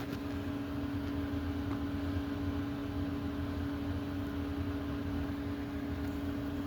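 A steady mechanical hum with one constant pitched tone over a low rumble, unchanging throughout.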